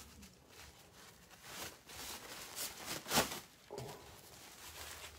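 Rustling and crinkling of a blue disposable drape as it is unfolded and laid over a patient's chest, in several irregular bursts. The loudest rustle comes a little after three seconds in.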